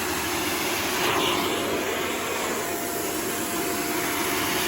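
Von VAVC-16DMR bagless dry vacuum cleaner running steadily, a hissing rush of suction with a faint steady whine, as it sucks cat fur off fabric. The airflow noise swells briefly about a second in.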